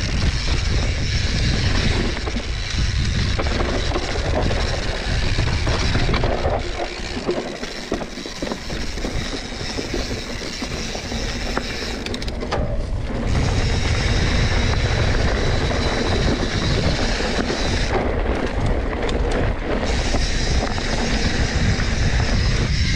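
Mountain bike riding down a rough technical trail: a rumble of wind on the microphone and tyres on dirt and rock, with the bike rattling over the bumps. It eases off a little partway through, then picks up again.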